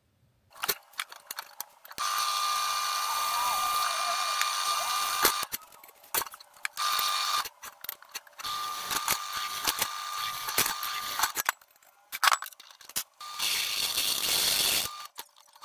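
Benchtop drill press drilling bolt holes through a steel automatic-transmission flex plate: three stretches of steady drilling with a whine, with clicks and knocks in between as the plate is moved to the next hole.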